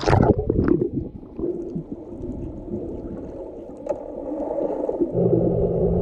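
Water splashing as the microphone goes under, then muffled underwater gurgling and rumbling. About five seconds in, a steady low hum starts.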